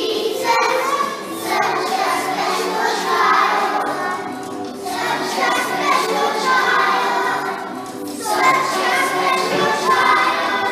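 Young children's choir singing a song together, in phrases a few seconds long with short breaths between them.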